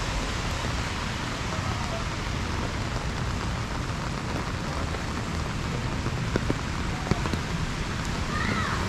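Steady rain falling on a wet paved street, an even hiss, with a few faint clicks about six and seven seconds in.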